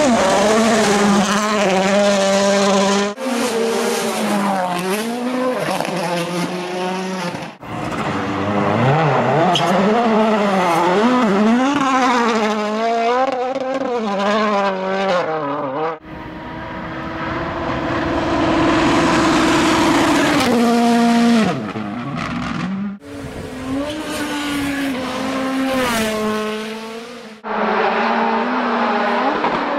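World Rally Cars' turbocharged four-cylinder engines revving hard at full attack, the pitch climbing and dropping rapidly through gear changes and lifts. The sound cuts abruptly between separate cars every few seconds. In one stretch a car's engine note holds steadier and grows louder as it approaches.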